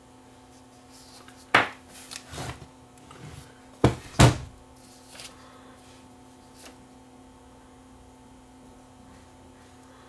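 A few sharp knocks and taps from small parts and tools handled on a workbench, the loudest two close together about four seconds in, over a faint steady hum.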